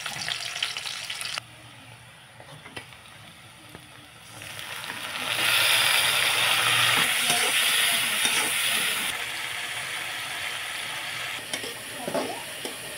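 Onions and chopped tomatoes sizzling in hot oil in a steel kadai while a metal spatula stirs them. The sizzle gets much louder about five seconds in and eases off again after about nine seconds, with a few sharp spatula clicks near the end.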